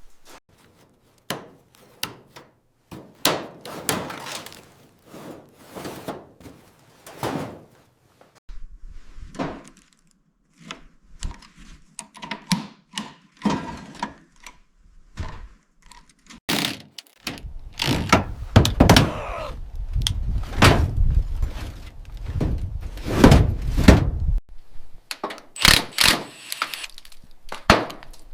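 A series of knocks and thunks, like workshop hand work on a car body, with a louder, heavier stretch of rumbling impacts in the second half.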